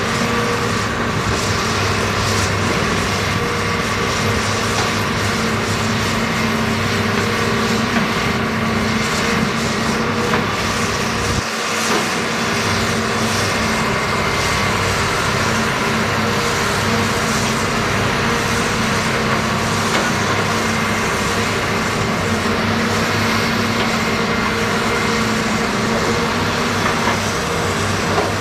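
Heavy diesel engines of a Volvo crawler excavator and dump trucks running steadily under load while soil is dug and loaded. There is a brief drop in the low rumble about eleven seconds in.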